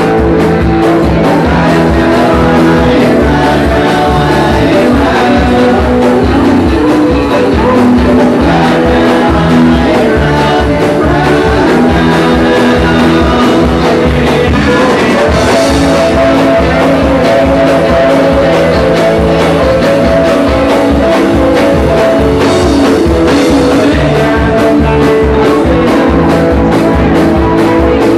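Live band playing: electric guitars over a drum kit's steady beat.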